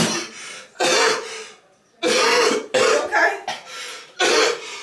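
A person coughing hard and repeatedly: about five harsh coughs spread across a few seconds.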